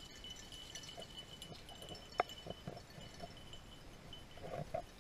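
Pack of beagles giving scattered short yelps and bays at a distance while working to pick up a lost rabbit's trail, the sharpest about two seconds in and a quick cluster near the end.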